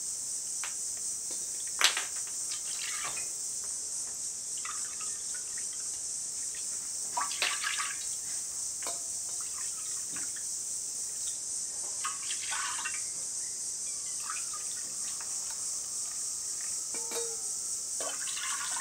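Star fruit juice poured from a steel bowl into a small steel measuring cup and tipped into a wide metal pan: liquid splashing in short spells, with light clinks of the steel cup, a sharp one about two seconds in. Steady high-pitched insect chirring runs underneath throughout.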